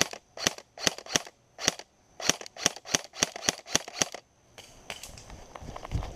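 Airsoft gun shots: about a dozen sharp snaps fired one after another at uneven intervals over roughly four seconds, then stopping.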